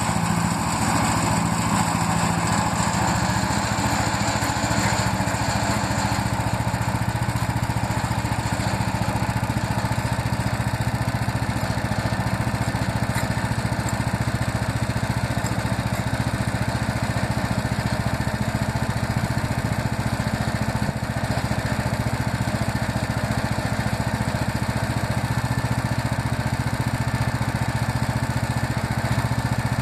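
Woodland Mills HM130 Max portable bandsaw mill running steadily, its gas engine driving the band blade through a short black walnut log.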